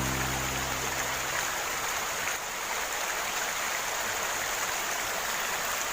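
Steady hiss of rain falling together with river water flowing. Low background music fades out in the first second or so.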